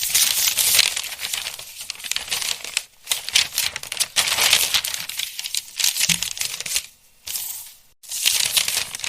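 Paper pages of a book rustling and flipping in several crisp runs, broken by short pauses, with a soft low thump about six seconds in.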